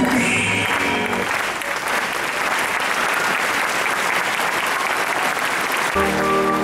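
Audience applauding, with the dance music dying away in the first second. About six seconds in, instrumental music starts.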